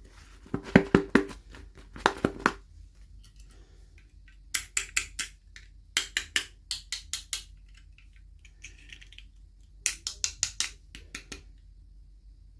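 Small hard plastic toy pieces and packaging clicking and tapping together as they are handled, in about five short bursts of rapid clicks.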